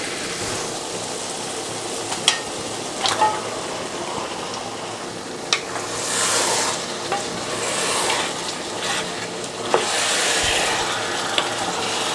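Raw goose pieces sizzling in hot fried spice paste as a wooden spatula stirs and turns them through the pot, with a few sharp knocks along the way. This is the raw meat just added to the cooked-down masala.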